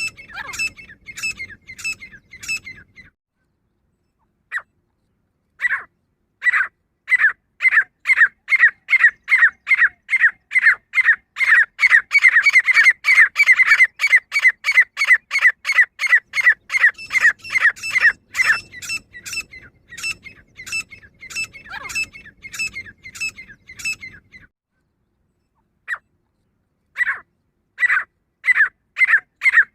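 Female grey francolin calling: a fast series of short, sharp notes, about three a second, in long runs broken by a couple of pauses of a few seconds.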